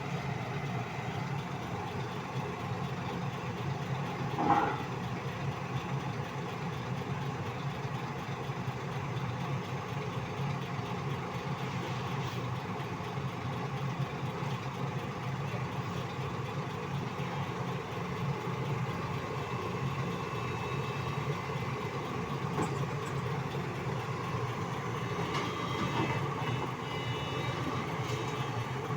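Heavy diesel engine of a large PC365 excavator running steadily. There is a brief, loud squeal-like sound about four and a half seconds in, and thin high squealing near the end.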